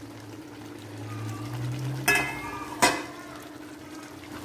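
Metal spoon stirring chopped vegetables into a masala in a metal cooking pot, with two ringing clanks of the spoon against the pot about two and three seconds in. A steady low hum runs underneath.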